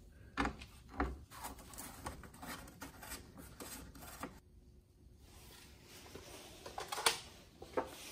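A metal licence plate being unscrewed and taken off a Mercedes-Benz GLC's rear plate holder: scattered light clicks and knocks with some rubbing of metal and plastic, the sharpest click about seven seconds in.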